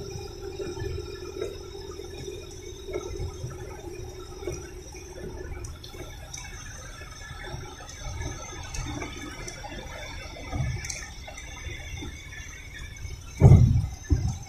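Rain and tyre noise on a wet highway heard from inside a moving car's cabin, a steady watery rumble. Two heavy thumps come near the end.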